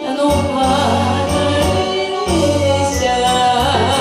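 Woman singing a Japanese song into a microphone over a recorded backing track with bass and a steady beat.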